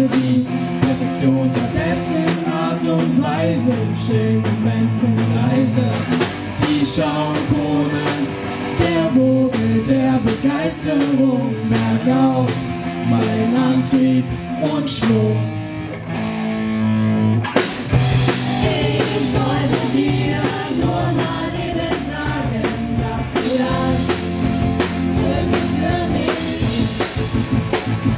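Live rock band with several singers in unison over electric guitars, bass guitar and a drum kit. The band's sound thickens about two-thirds of the way in.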